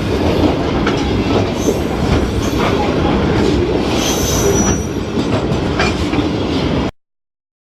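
A train passing: a loud, continuous rumble with wheel clicks and a brief high-pitched wheel squeal about four seconds in. It cuts off suddenly near the end.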